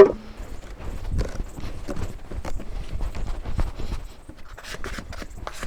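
A sharp knock, then irregular light knocks and taps: a bowl and utensils handled on a wooden work board while brioche dough is readied for the bowl.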